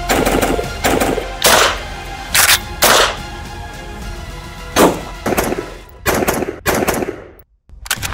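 Rifle gunshots edited together over background music: about ten sharp shots, irregularly spaced, some in quick pairs. The sound drops out briefly near the end.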